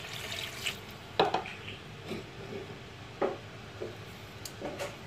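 Water poured into a metal pot of raw meat chunks, the splashing ending under a second in. It is followed by a handful of light knocks and clinks, the loudest about a second in.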